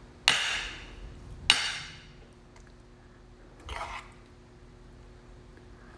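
A serving spoon scooping cooked vegetables from a pan onto a plate: two sharp scrapes about a second apart, then a softer one.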